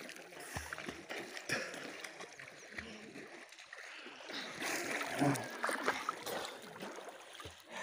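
River water sloshing and splashing around a person wading chest-deep.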